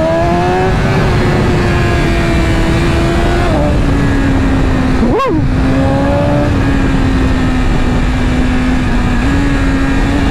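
2023 BMW S1000RR's inline-four engine running at highway speed under heavy wind rush, its pitch sagging slightly as the bike slows. About five seconds in there is one quick rev spike up and back down, and near the end the pitch steps up a little.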